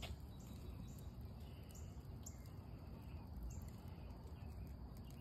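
Wood fire burning in a Solo Stove stainless steel fire pit: a faint low rumble with a sharp crack at the start, and faint short high chirps in the background.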